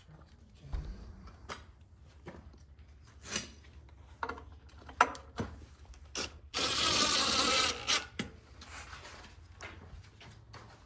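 A power screwdriver runs a small screw in for about a second and a half, fastening the screen's frame, among scattered clicks and knocks of the frame, screws and tools being handled.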